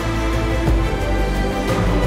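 Background music with sustained pitched notes and a light percussive hit about once a second.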